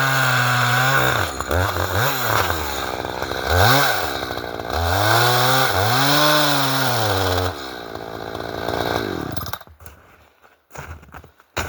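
Two-stroke chainsaw at full throttle, easing off after about a second, revved twice briefly, then held wide open again for a few seconds before dropping back and dying away near the end. A few short knocks and clicks follow.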